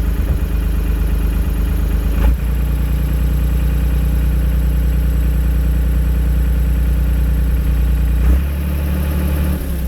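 Valmet four-wheel-drive tractor's diesel engine running steadily. Its note shifts briefly about two seconds in and again near the end.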